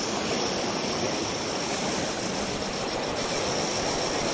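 Shimano Stradic 1000HG spinning reel's drag buzzing steadily as a hooked fish pulls line off the spool, over surf washing on the rocks.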